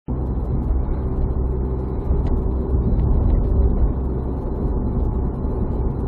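Steady low rumble of tyre and engine noise inside a car cruising at about 70 km/h, heard from the windscreen dashcam in the cabin.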